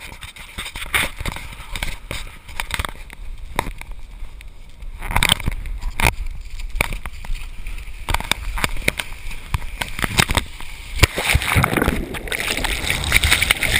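Shallow surf washing and sloshing over sand, mixed with frequent short knocks and rubbing from the handheld action camera being moved about. The water grows louder about three quarters of the way in.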